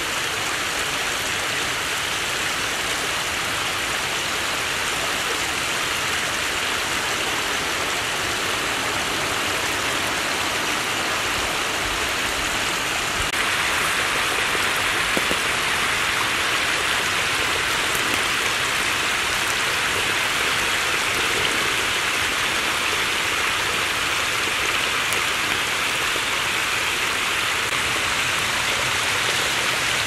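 Water of a thin waterfall streaming and splashing down a wet rock face, a steady rushing hiss. About 13 seconds in it steps up slightly louder and brighter.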